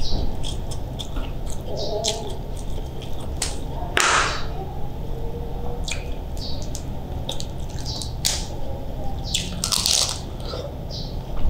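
Close-miked eating sounds: cooked crab shell being pulled apart by hand with small wet clicks and cracks, and chewing, with two louder wet crackling bursts about four seconds and ten seconds in.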